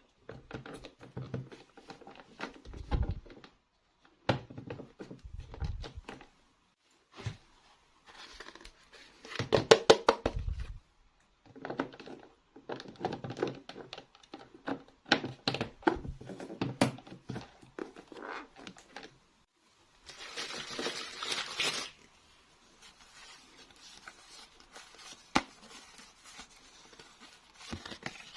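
Toy packaging being unwrapped and handled: crinkling and tearing, with irregular clicks and taps of small pieces between short pauses. There is a longer, denser rustle about twenty seconds in.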